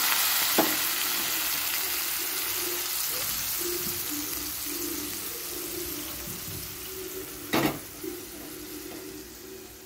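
Cold milk sizzling in a hot kadai of ghee-fried vermicelli, a fine hiss that slowly dies down as the pan cools. A single sharp knock comes about seven and a half seconds in.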